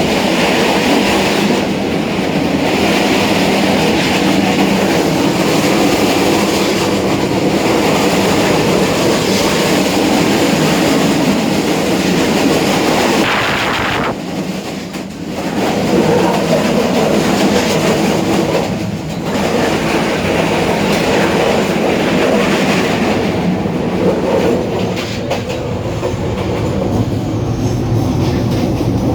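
Train running on the rails, a steady loud rumble that dips briefly about halfway through and again a few seconds later.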